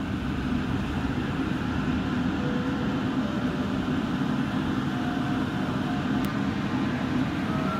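Steady low hum inside a JR Central 313-series electric train standing at a station, from its onboard equipment running while stopped. A single sharp click about six seconds in.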